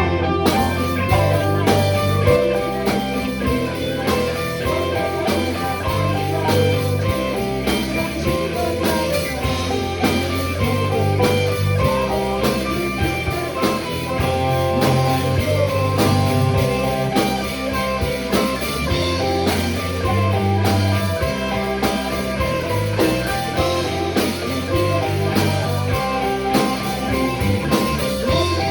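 Rock band playing an instrumental passage: electric guitar over a repeating bass line and drum kit.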